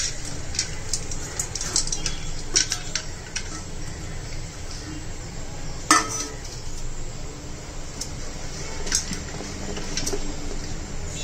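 Scattered clinks and knocks of utensils against a metal pressure cooker as toor dal is added, with one louder knock about six seconds in, over a low steady hum.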